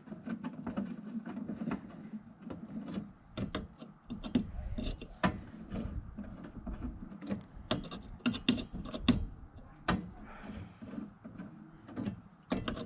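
Scattered sharp clicks and knocks of metal parts being handled as a bus windscreen wiper arm is worked onto its new spindle, with a low rumble through the middle.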